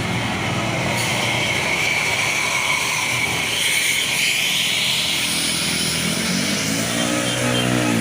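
A large bus driving past close by, a steady run of engine and tyre noise that swells through the middle. Near the end a pitched horn begins to sound.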